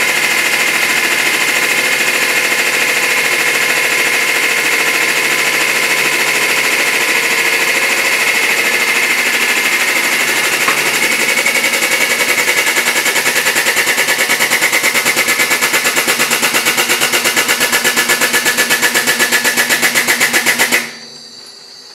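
Hydraulic press pump motor running steadily under load, with a fast, even pulsing that grows stronger over the second half, then cutting off abruptly near the end.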